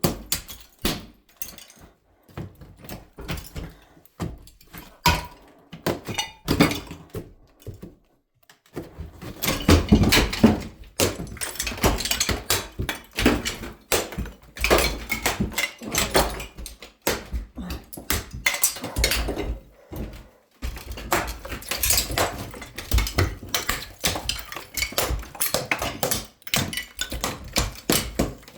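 Hand demolition in a small room: repeated irregular knocks and crashes as old wall material is broken off and falls. After a short lull about eight seconds in, the strikes come thick and fast.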